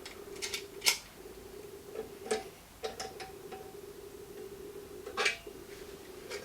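Scattered small clicks and knocks of parts being handled as a bench grinder's eye-shield bracket is fitted and its knob screwed in, about half a dozen in all. Under them runs a faint steady hum, which cuts off just after the end.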